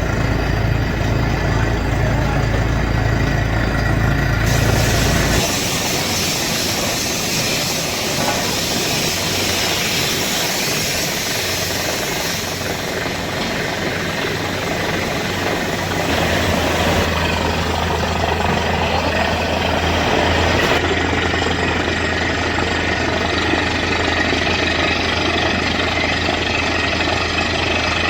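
An engine running steadily. The sound's character changes abruptly a few times.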